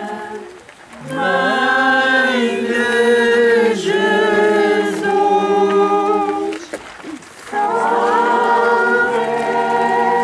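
A crowd singing a hymn together unaccompanied, in long held phrases, with short breaks near the start and again about two-thirds of the way through.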